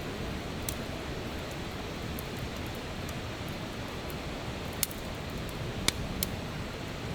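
Wood fire burning: a handful of sharp crackles and pops from the burning wood, the loudest about six seconds in, over a steady rushing hiss.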